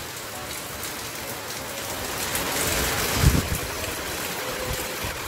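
Heavy rain pouring down in strong wind, a steady wash of noise that swells a little about two seconds in, with a brief low thump near the middle.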